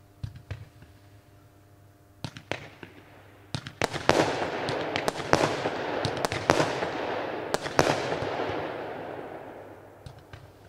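Consumer firework battery (cake) firing. A few sharp launch pops and bangs come in the first four seconds, then a dense crackling shower with louder reports mixed in takes over, builds through the middle and dies away near the end.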